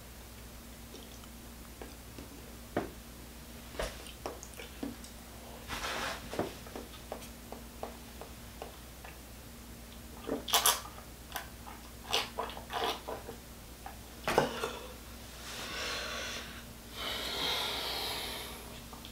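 Close-miked eating sounds: a mouthful of sea moss gel chewed and swallowed with wet lip smacks and small mouth clicks, then sips from a cup. Near the end comes a long, breathy exhale, over a faint steady hum.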